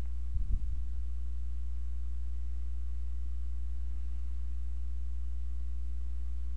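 Steady low electrical hum with a few fixed low tones, and a brief low bump about half a second in.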